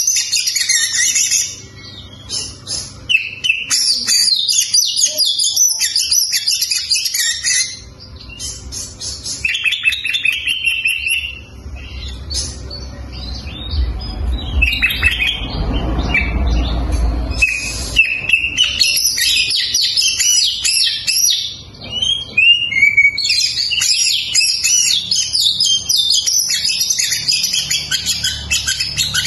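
Oriental magpie-robin singing a long, varied song of rapid whistled phrases in bursts, with short breaks between them. A low rumble runs underneath for a few seconds in the middle.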